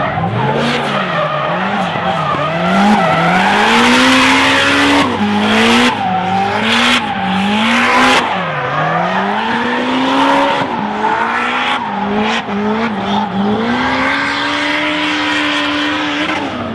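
Drifting Toyota AE86 coupe with a swapped-in Honda F22C four-cylinder engine: the revs climb and drop sharply again and again as the throttle is worked, with one long high rev held near the end. The tyres screech throughout.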